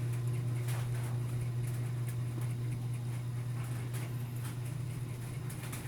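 A steady low hum with faint, scattered small clicks.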